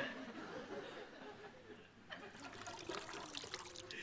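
Faint splashing and trickling water from car washing by hand with a bucket and cloth, with a scatter of small wet clicks starting about two seconds in.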